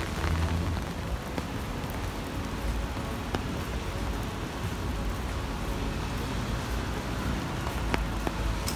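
Heavy rain falling, a steady hiss with a few sharp drop ticks, over a low rumble of city traffic.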